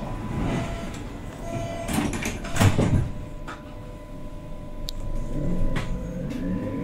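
Sliding passenger doors of a Berlin U-Bahn H-series train closing, ending in a loud thud as the leaves meet a little under three seconds in. A steady hum and a few sharp clicks follow, and near the end a rising whine begins as the train starts to pull away.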